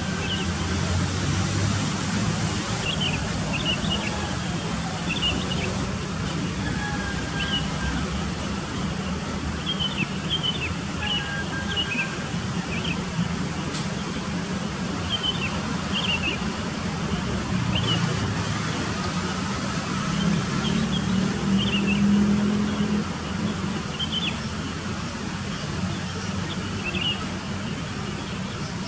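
Steady low rumble of distant road traffic under a hiss of outdoor noise, with short, high bird chirps every second or two.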